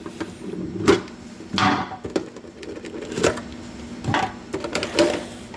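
Light knocks and scrapes from a collectible card tin and its packaging being handled during opening: about five separate taps, spaced out.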